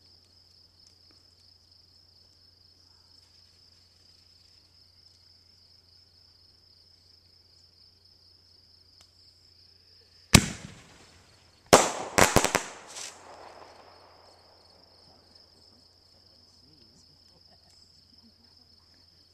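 Black Cat Magnum Artillery firework shell fired from its mortar tube. A sharp launch bang comes about ten seconds in. About a second and a half later the shell bursts with a loud bang and a quick run of further reports, dying away over a couple of seconds.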